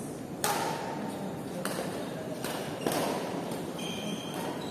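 Badminton rackets hitting a shuttlecock in a rally: four sharp hits within about two and a half seconds, the first the loudest, each echoing in a large hall.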